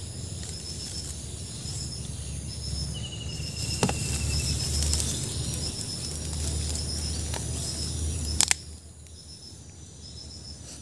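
Insects chirping in short high-pitched pulses repeated about every three-quarters of a second, over a low rumble on the microphone that cuts off suddenly after two sharp clicks near the end.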